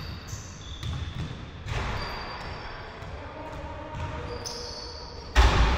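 Basketballs bouncing on an indoor court, with repeated low thuds and short high squeaks. There is one loud bang about five seconds in.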